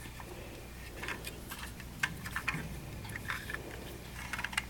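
Scattered light clicks and taps of plastic Lego pieces as a small Lego car model is handled.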